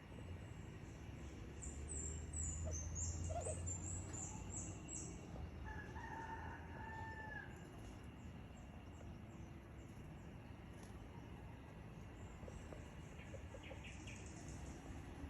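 A rooster crowing once, a long call about six seconds in that rises and falls, with short high-pitched bird chirps in the first few seconds over a low hum.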